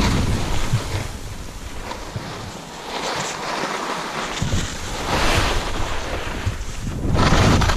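Skis scraping and carving across hard, bumpy snow, with wind rushing on the camera microphone. The noise swells with each turn, loudest near the start and near the end.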